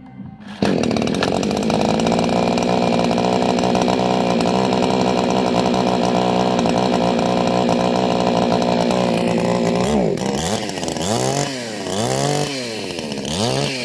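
Two-stroke chainsaw engine starting: it catches suddenly about half a second in and runs steadily. Over the last few seconds it is revved up and down repeatedly, about once a second.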